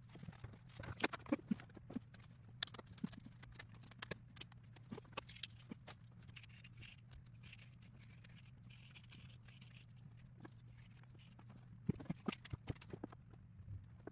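Irregular sharp clicks and taps of small laser-cut plywood model parts and tools being handled on a wooden table, in clusters near the start and again near the end, over a low steady hum.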